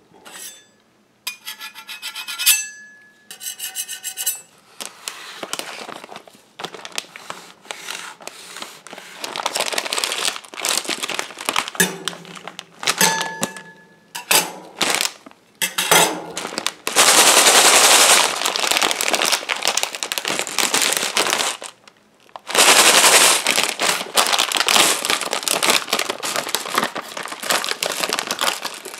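Steel scrapers tapped and clinked on a stainless-steel rolled-ice-cream pan in the first few seconds, with short metallic rings. Then a plastic bag of M&M's is crinkled and rustled by gloved hands, getting loud and continuous in the second half as the bag is opened.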